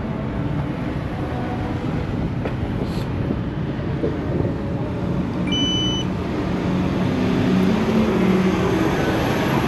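Steady street traffic rumble. About five and a half seconds in comes a short electronic beep, stepping between two pitches, that confirms a tap-to-pay phone payment at a card reader.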